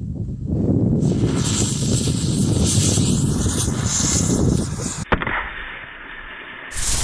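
A bundle of about fifty 'beetle' ground-spinner fireworks burning, a loud continuous hiss and crackle. About five seconds in it cuts off abruptly to a quieter, duller stretch, and the loud hiss returns near the end.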